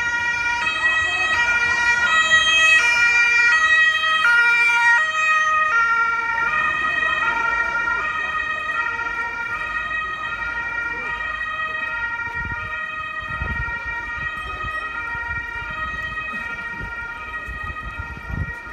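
Ambulance's two-tone siren (German Martinshorn) switching between a high and a low note about every two-thirds of a second. It starts suddenly, is loudest for the first several seconds, then grows fainter.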